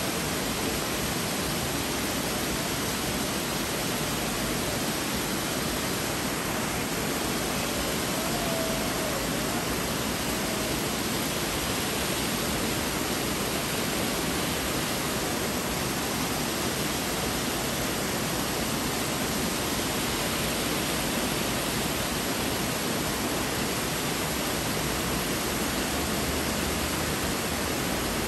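Water pouring steadily over a river weir: a constant, even rush of white water.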